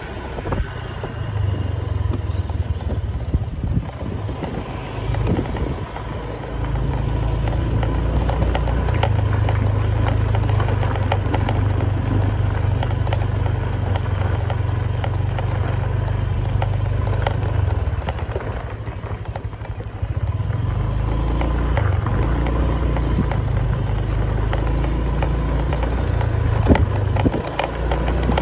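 Motorbike riding along a town street: the engine runs steadily with a heavy rumble of wind on the microphone, louder from about a third of the way in, with scattered small knocks and rattles.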